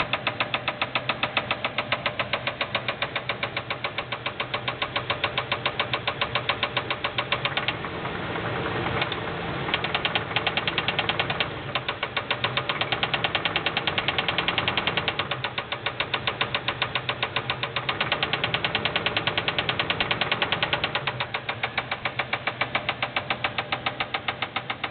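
LT1 5.7-litre V8 running with a heavy, regular rod knock, about four or five knocks a second, the sign of a spun rod bearing, which the owner says is also letting the piston hit the head. About eight seconds in the knock fades out for a second or two, then comes back.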